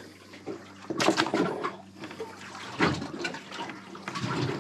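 A landed reef fish struggling on a boat's cutting board while held down: a few irregular bouts of wet slapping and splashing.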